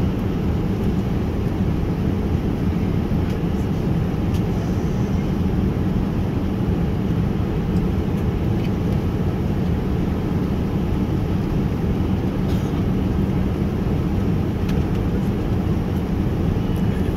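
Steady cabin noise of a jet airliner at cruise altitude, engines and rushing air heard from inside the passenger cabin as a constant low rumble.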